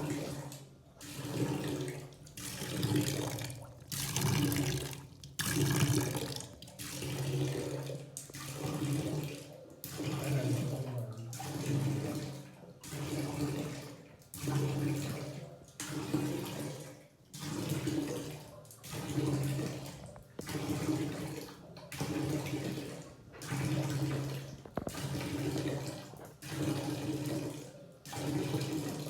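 Water gushing out in regular surges, swelling and dropping about every one and a half seconds, with a low steady note under each surge.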